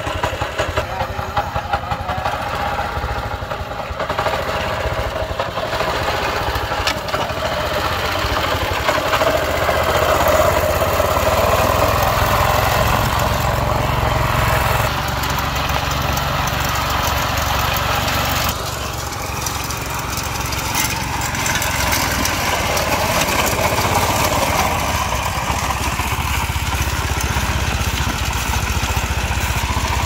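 A rebuilt rice harvester's engine running steadily, with a mechanical clatter; the level dips briefly a little past halfway, then comes back up.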